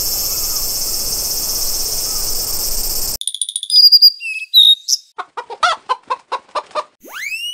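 Steady high insect buzz that cuts off about three seconds in. A loud cartoon logo sting follows: quick chirps and whistles, a run of about eight short pitched calls, and a rising whistle near the end.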